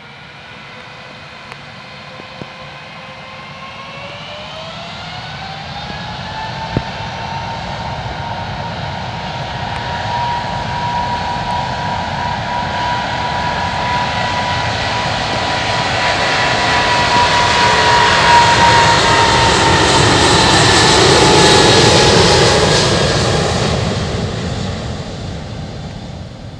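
Jet airliner engines spooling up, their whine rising in pitch a few seconds in, then holding steady. The sound grows steadily louder as the aircraft passes, loudest about three-quarters of the way through, then fades.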